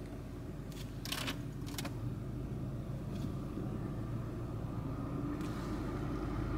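Car engine running with a steady low rumble, heard from inside the cabin while the car creeps into a parking space. A few light clicks come through, the clearest about a second in.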